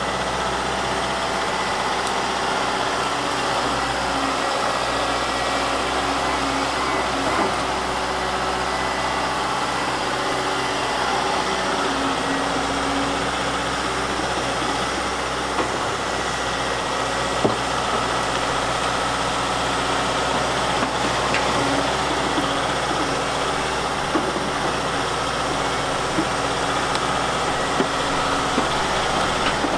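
Volvo crawler excavator's diesel engine running steadily, with a few short knocks in the second half.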